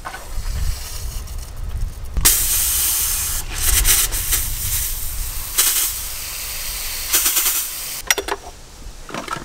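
Garden hose's multi-nozzle hand sprayer spraying water with a loud, steady hiss. The spray starts suddenly about two seconds in and stops about a second before the end. The sprayer's squeeze handle has been pressed as the hose is wound onto the reel, so it sprays unintentionally.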